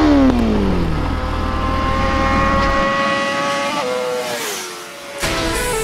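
Motorcycle engine sound effect: a rev falls away, then the engine holds a high, steady note that creeps up in pitch before dropping off about four seconds in. Music with stepping notes starts near the end.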